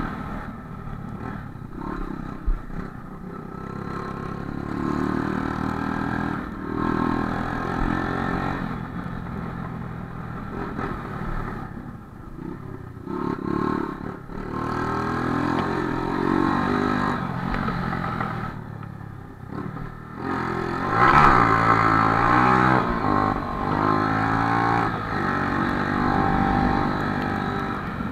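Honda CG single-cylinder four-stroke motorcycle engine under way, its pitch rising and falling as the throttle opens and closes, loudest in a hard acceleration about two-thirds of the way through. It is running without stalling, its carburettor freshly cleaned.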